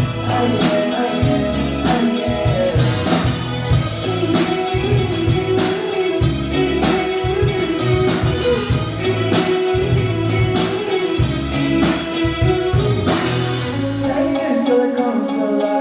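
Rock band playing live: guitar, bass and drums, with steady drum hits and sustained guitar lines. The low bass and kick drop out near the end.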